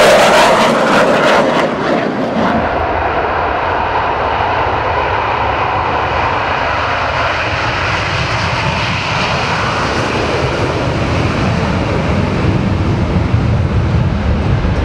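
Jet noise from a Blue Angels F/A-18 Hornet's twin turbofan engines as it passes overhead, loudest in the first two seconds. It then settles into a steady jet rumble that swells again in the low end toward the end.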